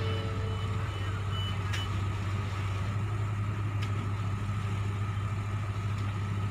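Heavy diesel machinery of a piling rig running steadily with an even low hum, and a couple of faint clicks.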